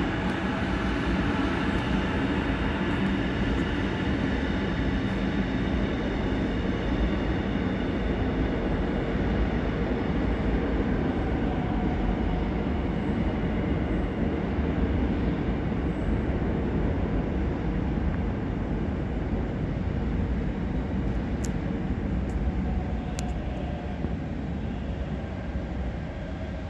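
Seoul Metro Line 5 subway train running away down the tunnel: a steady rumble of wheels and motors with a hum of several steady tones, slowly fading as it goes. A few faint clicks near the end.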